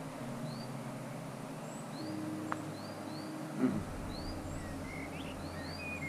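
A thrush calling with short, high chirps, repeated irregularly about every half second, while holding food in its beak; a few lower notes come near the end. A brief soft knock a little past halfway is the loudest moment.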